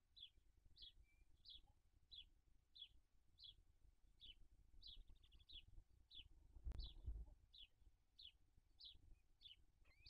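A faint, steady series of short high chirps, each falling in pitch, about one and a half a second. About seven seconds in there is a low thump and a brief rustle as the brooding barn owl shifts her body in the nest box.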